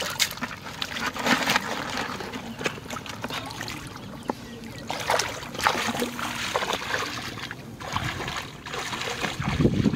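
Shallow muddy water splashing and sloshing as a person wades barefoot through it, in uneven swishing steps with trickling between them.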